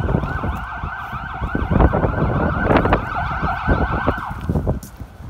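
Emergency vehicle siren in a fast yelp, several rising-and-falling sweeps a second, cutting off about four seconds in. Footsteps knock underneath.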